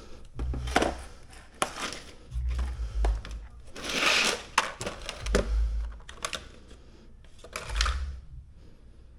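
Hand screwdriver and loose metal bits clicking and knocking as they are handled and tried against screws, with low handling thumps and a brief rustle about four seconds in.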